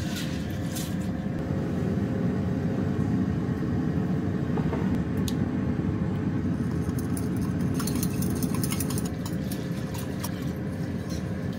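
A steady low rumble from a running fan or motor, with a faint steady hum above it. A few light clinks and clicks come through, more of them from about eight seconds in.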